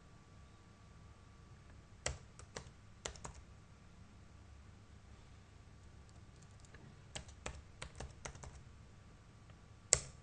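Computer keyboard keys being typed in two short bursts of keystrokes, one about two seconds in and another about seven seconds in, then a single louder click near the end.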